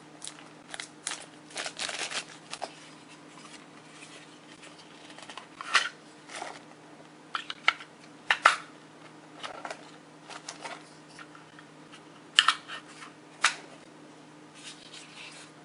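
Hands handling a small plastic-wrapped AA battery and the plastic battery compartment of a Takstar SGC-598 shotgun microphone while fitting the battery: crinkling and rustling at first, then a few separate sharp plastic clicks as the battery goes in and the cover is handled.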